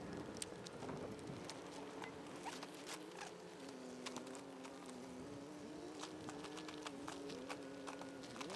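Tobacco stalks burning under a cover of banana leaves, crackling with many small irregular pops as they char down to charcoal.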